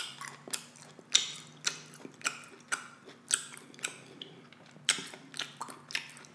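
Close-miked chewing of a mouthful of beef kielbasa sausage: wet, crackly bites and chews about twice a second.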